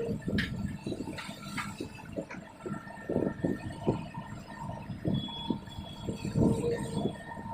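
Hydraulic excavator working a ditch: irregular low rumbles and knocks as it works, with a few sharp clanks about half a second and a second and a half in.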